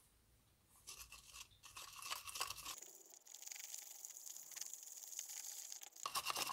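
Flat wooden stir stick scraping round a small cup in quick strokes, mixing dry colour pigment into polyester gelcoat. It starts about a second in.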